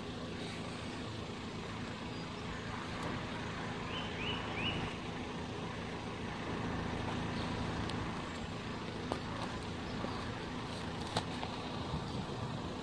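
Road vehicles idling at a closed level crossing, a steady low engine hum. Three short high chirps come about four seconds in.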